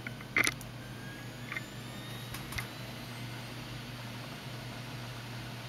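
Steady low hum of a running computer with faint hiss, and a few short sharp clicks, the loudest about half a second in.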